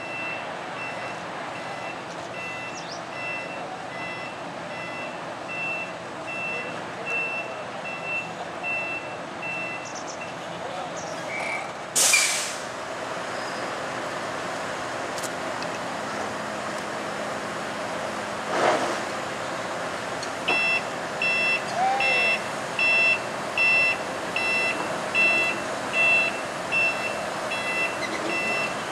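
A heavy truck's reversing alarm beeps steadily over engine noise, and a loud short hiss comes about twelve seconds in. From about two-thirds of the way through, a louder warning beeper in several tones repeats about once a second.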